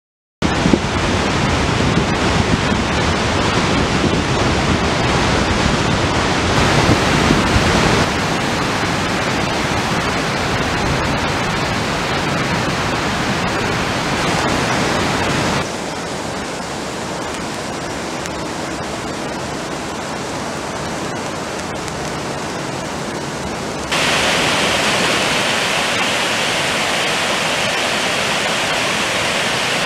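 Steady rush of water from a flood-swollen river and heavy rain. It starts suddenly about half a second in and changes abruptly in level and tone about 8, 16 and 24 seconds in.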